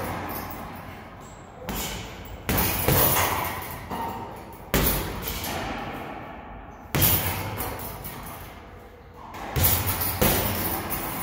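Gloved punches landing on a hanging heavy punching bag: a hard thud every second or two, each trailing off in echo off the bare block walls and tile floor.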